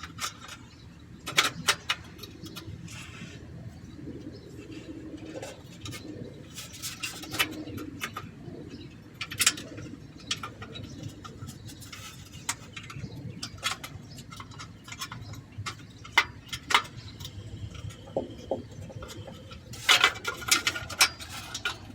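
Thin stamped-steel catalytic converter heat shields clinking, tapping and scraping as they are held and shifted against the converter, with irregular metallic clicks every second or so.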